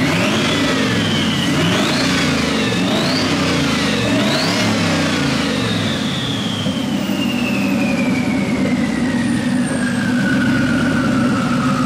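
Twin-turbo LS V8 in a Fox-body Mustang running while it warms up, revved up and down several times by hand at the throttle in the first five seconds. After the last blip a high whine falls slowly as the revs come back down.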